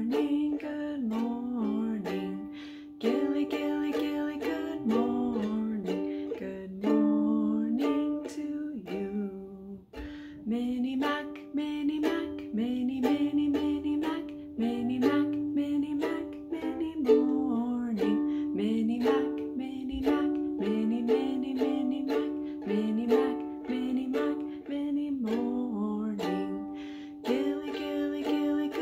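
A woman singing a children's good-morning song while strumming chords on a Kala ukulele.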